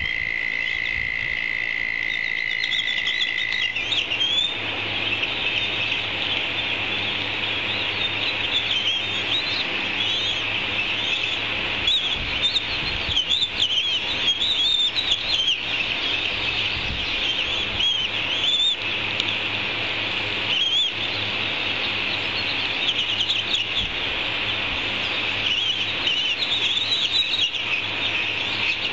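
Dense, overlapping high-pitched bird chirping that goes on without a break, with a steady high whistle-like tone underneath for the first four seconds or so. A few low thuds come through in the middle.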